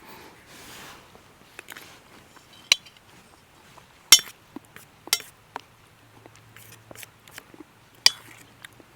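A utensil clinking and tapping against a dish, a handful of separate sharp clinks with the loudest about four seconds in, along with small scrapes and ticks.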